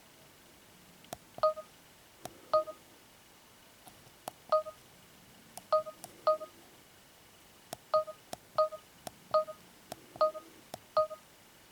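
Samsung SMX-C200 camcorder's menu beeping as its buttons are pressed: about ten short, identical electronic beeps at uneven intervals, each just after a small button click.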